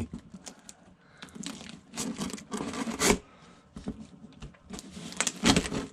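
Cardboard box being opened by hand: irregular tearing and scraping of tape and cardboard with some crinkling, loudest in strokes about 2, 3 and 5½ seconds in.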